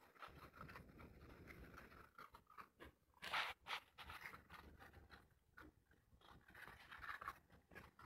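Faint crunching and scraping of several puppies eating from a bowl, with a short louder run of crunches about three and a half seconds in.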